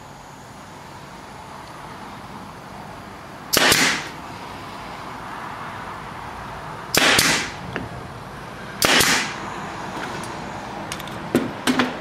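Pneumatic stapler firing three staples into a plywood strip, each shot a sharp crack with a brief hiss of air, a few seconds apart. A few light clicks follow near the end.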